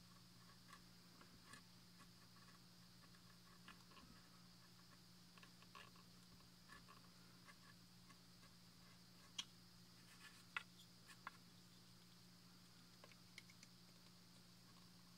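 Small hand carving tool cutting and scraping into wood: faint, scattered ticks and clicks, a few sharper ones past the middle, over a steady low hum.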